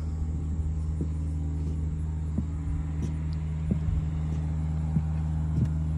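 A steady low machine hum with faint, irregular knocks over it.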